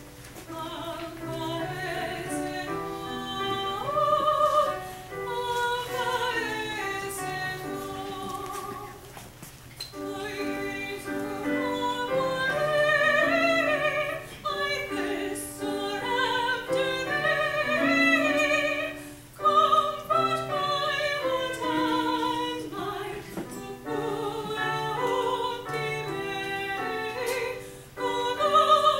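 A woman singing solo in a classical, operatic style, with vibrato on the held notes and brief pauses between phrases.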